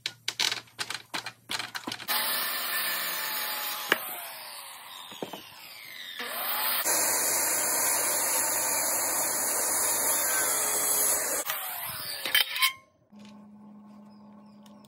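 Circular saw running and cutting through a wooden 2x4 laid across sawhorses, with the blade's pitch sliding as it winds down and spins up again between cuts. A quick run of clicks and knocks comes at the start, and two sharp knocks follow the cutting.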